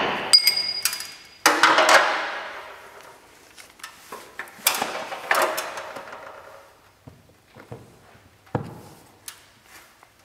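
Hammer striking a center punch on a rivet in a semi-trailer's metal side wall. A few sharp metallic strikes with a ringing tail come in the first two seconds, then softer, spaced knocks follow.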